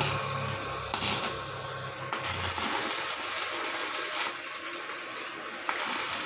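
Arc of a Ryu inverter stick welder crackling and hissing steadily as the electrode lays a bead on a thin steel strip, the crackle swelling and easing a few times as the arc length changes.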